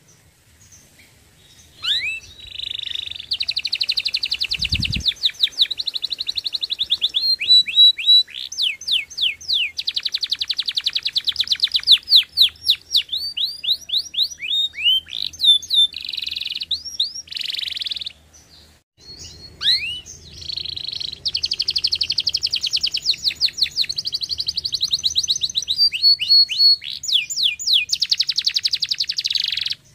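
Domestic canary singing in long, fast phrases: rolling trills of rapidly repeated notes mixed with quick rising whistles. The song pauses briefly about two-thirds of the way through and then starts again.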